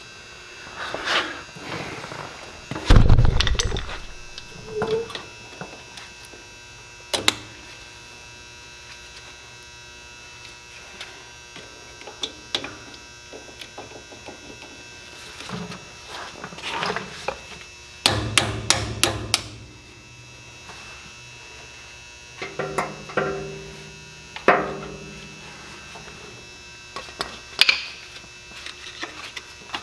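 Scattered knocks and clicks from the wheel hub and its tapered roller bearing being worked apart, with one heavy thump about three seconds in and a quick run of clicks later on. A steady hum runs underneath.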